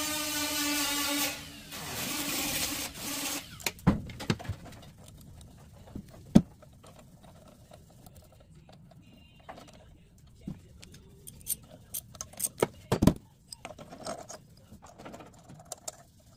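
Scattered metal clinks and knocks as a valve spring compressor tool is handled and set onto a Cummins ISB diesel cylinder head. Before that come a few seconds of loud rushing noise with a faint steady hum, which stops about three and a half seconds in.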